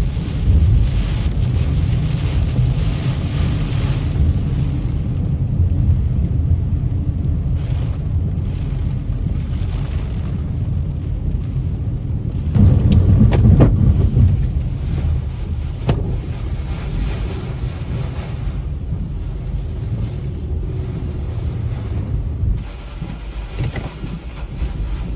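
Hurricane-force wind buffeting the microphone, a continuous low rumble with a stronger gust about halfway through.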